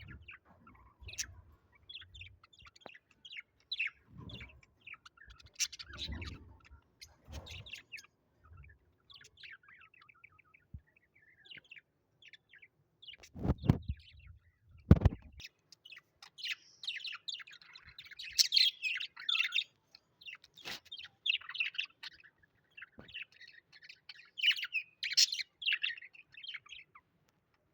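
Small birds chirping and twittering in quick, short high calls, busiest and loudest in the second half. About halfway through there are two loud, low thumps.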